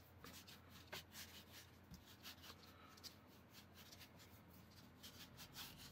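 Faint rubbing of palms rolling a strip of pretzel dough back and forth on a floured wooden cutting board, as a string of light, irregular brushing strokes.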